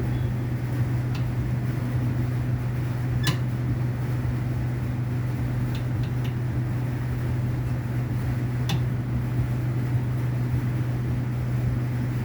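Steady low mechanical hum, with a few light clicks about 1, 3, 6 and 9 seconds in.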